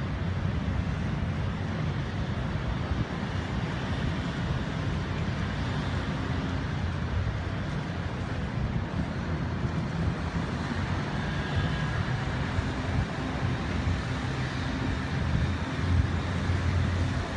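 Steady low rumble of motor yachts' inboard engines cruising slowly past on the waterway, with a faint engine hum through it. It swells slightly near the end as the closest yacht passes below.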